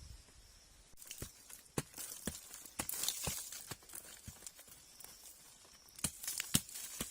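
Sharp clicks and knocks, roughly two a second, over a dry rustling and crackling, as of hands working stiff dry plant strips. It starts about a second in, thins out in the middle and picks up again near the end.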